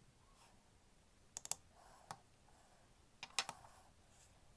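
Small sharp metal clicks of tools and fingers working a brass fusee pocket-watch movement while its pins are removed. A quick cluster comes about a third of the way in, a single click near the middle and another cluster about three quarters through, over soft rustling.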